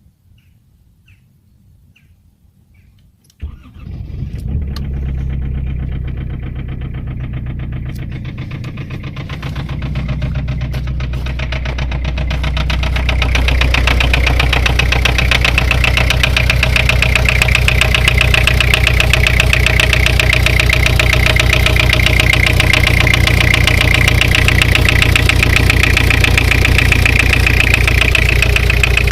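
Nissan Primera P11's CD20T four-cylinder turbo-diesel cranks and fires from cold about three seconds in, then idles with a rapid clatter, the cold-engine knock whose cause the owner is trying to find. The running grows louder about ten seconds after it starts.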